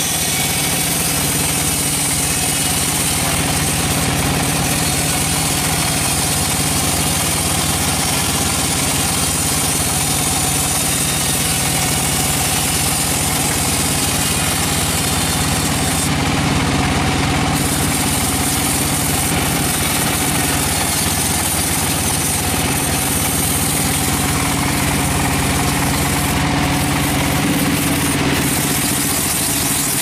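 Large vertical band sawmill running steadily, its drive and spinning blade giving an even mechanical drone.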